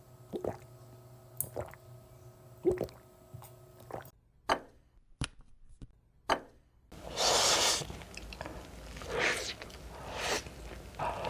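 Close-up wet eating sounds: short, squelchy clicks of chewing. About four seconds in they drop to near quiet for a few seconds with only a couple of clicks, then louder, hissing bursts of noise return.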